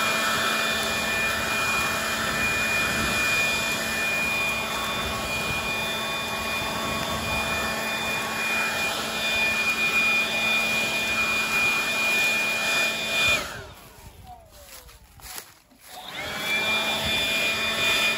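Handheld leaf blower running at a steady high whine as it blows burning grass and leaves back into the burned ground to knock down the fire edge. It shuts off about 13 seconds in and starts up again about three seconds later.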